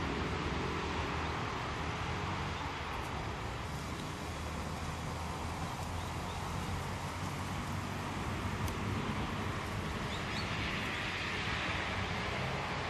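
Steady hum of distant road traffic, with a couple of faint short ticks past the middle.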